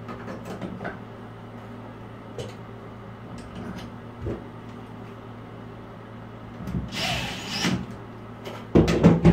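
Light clicks and knocks of shower trim and handle parts being fitted by hand, over a low steady hum. Near the end a cordless impact wrench runs in short bursts, driving a long trim screw.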